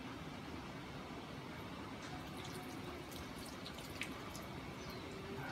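Faint water dripping in small, irregular drops over a steady low hiss; the drips thicken from about two seconds in. The water comes off a freshly bathed dog as it is rubbed with a towel.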